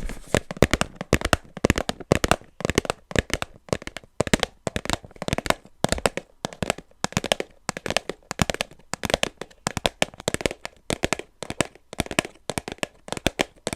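Rapid, irregular tapping on a Sanrio blind box, several sharp taps a second.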